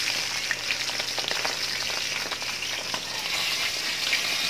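Floured stuffed milkfish (relleno bangus) frying in very hot oil in a wok: a steady sizzle with scattered crackles and pops.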